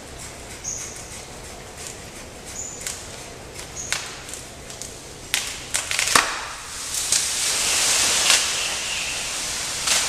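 Bullet tree being pruned: a run of sharp snaps and clicks of cutting and breaking twigs, thickest from about the fifth to sixth second, then a few seconds of leafy rustling and swishing as cut branches are pulled through the foliage.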